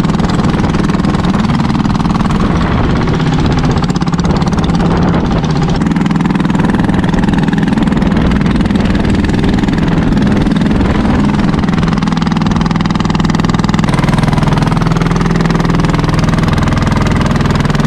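Engine of a hand-built wooden jet ski running steadily under way, over the rush of water and wind. The engine note shifts slightly about fourteen seconds in.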